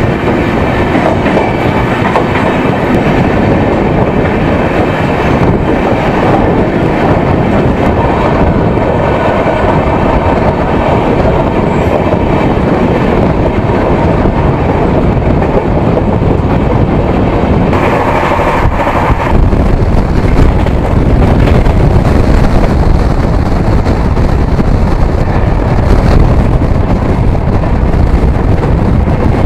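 Jan Shatabdi Express passenger train running at speed, a loud, steady rumble of wheels on the rails. About two-thirds of the way in, the rumble turns deeper and heavier.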